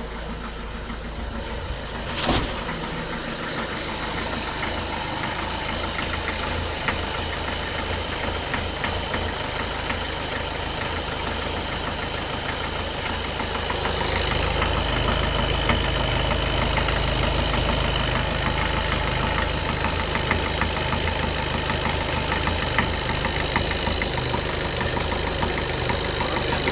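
Skoda Octavia A7 1.6 TDI four-cylinder diesel idling cold, running unevenly with a knock. The owner thinks one cylinder is not working and sees problems in the injector correction values. A short sharp click comes about two seconds in, and the engine note grows louder and deeper about halfway through.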